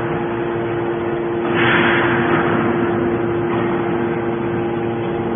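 Hydraulic scrap metal baler running: the pump and motor give a steady hum throughout, and a rushing hiss swells about a second and a half in, then fades.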